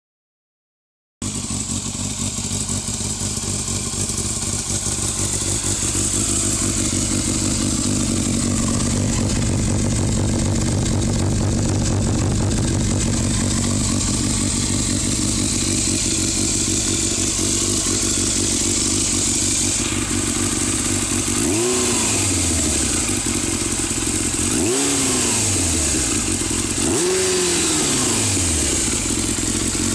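Yamaha Thundercat's 600 cc inline-four running through a Scorpion silencer with its baffle removed. It starts about a second in and idles steadily, then the throttle is blipped three times a few seconds apart near the end, each rev rising and dropping quickly back to idle.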